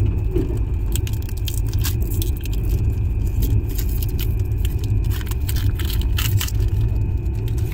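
Pokémon card packs being opened and cards handled: scattered crinkling and clicking, thickest about five to six and a half seconds in, over a steady low rumble.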